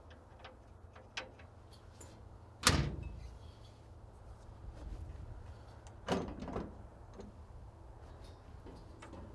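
Metal access doors on an excavator being shut and latched. There are two loud bangs with a ringing tail, about 3 s and 6 s in, the second a quick double clunk, with lighter latch clicks between them.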